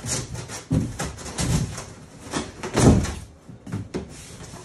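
Flaps of a corrugated cardboard box being folded down and pressed flat by hand: a run of scrapes and thumps, the loudest about three seconds in.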